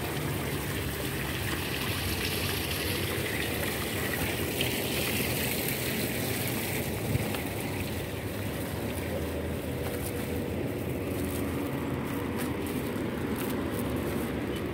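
Tiered garden fountain splashing steadily, its water sound fading after about six seconds and leaving a steady low hum, with a few light clicks near the end.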